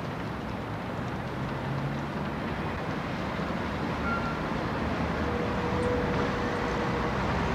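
Steady urban traffic noise, a dense hum that swells slightly over the stretch, with a few faint brief tones over it.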